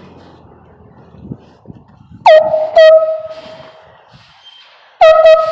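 Large handheld air horn blasting three times: two short blasts half a second apart, then another about two seconds later. Each blast dips briefly in pitch as it starts, then holds one steady blaring tone, loud enough to hit the recording's ceiling.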